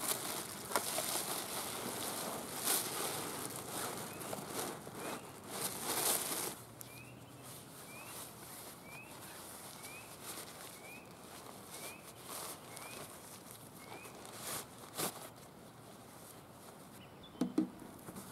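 Plastic bag and nylon backpack rustling and crinkling as gear is stuffed into the pack, loudest for the first six seconds or so. After that a short, high, rising call repeats about twice a second for several seconds, with a few more rustles and a dull knock near the end.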